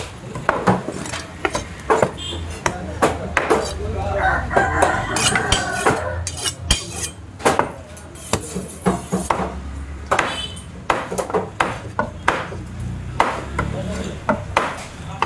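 Large fish knife chopping a trevally on a wooden cutting block: a run of irregular, sharp knocks as the blade strikes through the fish into the wood. Voices murmur in the background around the middle.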